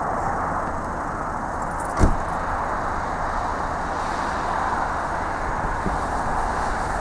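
Let L-410 twin-turboprop airliner climbing away after takeoff, its engines and propellers making a steady drone. A single sharp knock comes about two seconds in.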